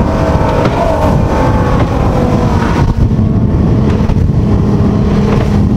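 Engine of a V-drive flat-bottom speed boat running at speed, loud and steady, with wind and water rushing past the open cockpit.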